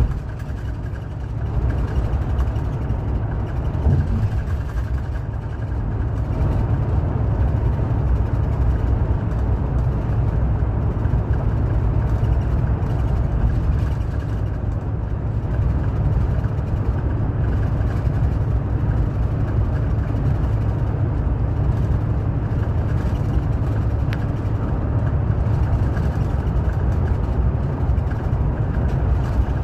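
Highway coach cruising at speed, heard inside the passenger cabin: a steady low drone of engine and tyres on the road, with one brief thump about four seconds in.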